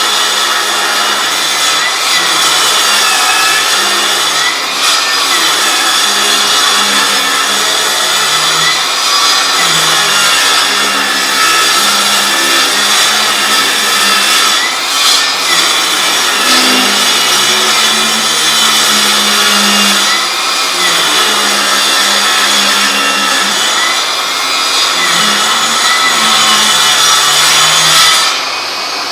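Milwaukee M18 Fuel 8-1/4" cordless table saw with a brushless motor, cutting wood continuously, its pitch wavering as the load on the blade changes. Near the end the loud cutting noise drops off suddenly.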